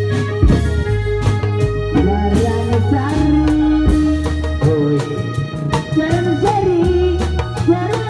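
Indramayu reog music: a steady repeating low bass line and drum strikes under a melody that slides and wavers in pitch from about two seconds in.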